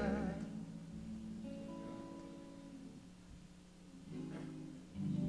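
Live doo-wop ballad in a pause between sung lines: soft guitar notes ring on under sustained chords, and near the end the voices swell back in with held harmony notes.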